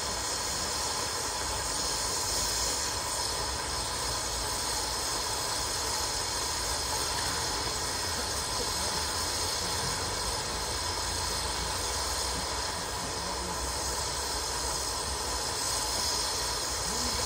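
Steady hiss and low rumble from a 15-inch gauge Romney, Hythe & Dymchurch Railway steam train, with no clear beat.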